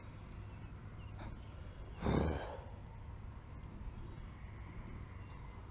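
A person's heavy sigh, one short noisy breath out about two seconds in, over a low steady rumble of wind on the microphone.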